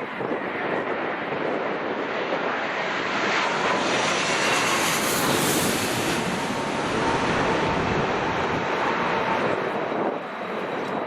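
Jet airliner passing low overhead on final approach: the engine noise swells to a peak about halfway through and then fades, with a faint engine whine that drops slightly in pitch as the aircraft goes by.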